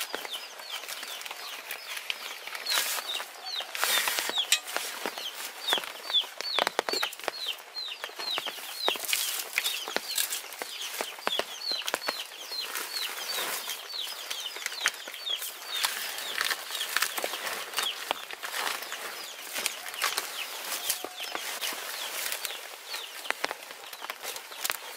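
A group of chickens calling, mostly many short, high peeps that fall in pitch, coming several a second, with scattered clicks and rustling among them.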